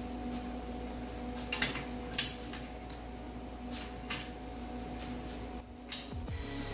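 Gloved hands handling a steel tube frame and setting small metal tabs in place: a few light knocks and clinks, the sharpest about two seconds in, over a steady electrical hum. Music comes in right at the end.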